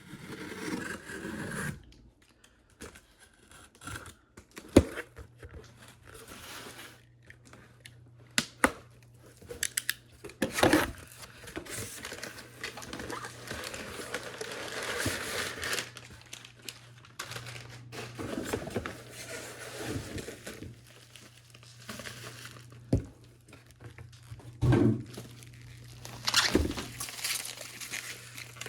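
A cardboard shipping box being opened and unpacked by hand: irregular tearing and crinkling of tape and packing material, with scattered sharp knocks and scrapes of handled cardboard.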